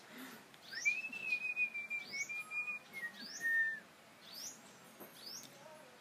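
A person whistles one long held note that drops in pitch at the end, while a small olive-and-yellow songbird perched on her hand gives short high chirps about once a second.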